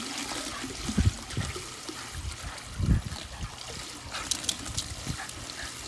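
Water trickling steadily, with a few low thumps about one second and three seconds in.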